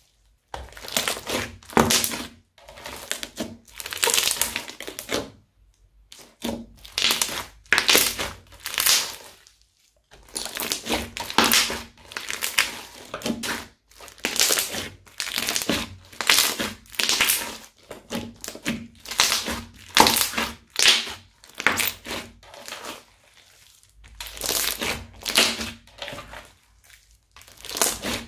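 Crunchy slime full of small beads being squeezed and kneaded by hand, crackling and popping in repeated bursts with short pauses between squeezes.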